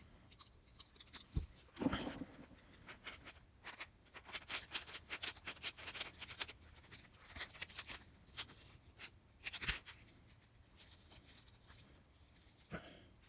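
Hands working a replacement plug onto a vacuum cleaner's power cord: quick scratchy clicks and rustling of wire and small plastic parts, thickest in the middle, with knocks about two seconds in and near ten seconds.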